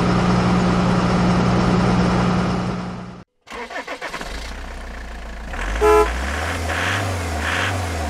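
Truck engine sound with a steady hum that cuts off about three seconds in. After a pause comes a low engine rumble that wavers in pitch, with a short, loud horn toot about six seconds in.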